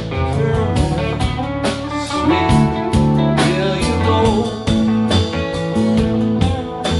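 A live band playing a song on electric guitars, drums and keyboard, with a steady drum beat.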